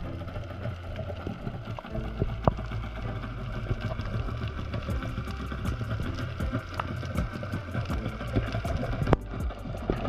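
Underwater sound over a reef, picked up by a submerged camera: a steady low hum with many scattered sharp clicks throughout.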